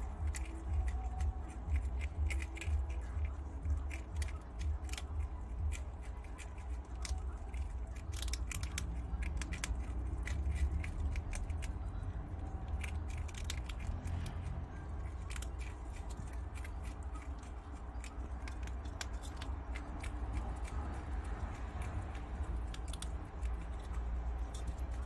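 Prairie dog nibbling and chewing food held in its front paws: quick, crisp clicks of its teeth, thick through the first half and thinning out after that, over a low steady hum.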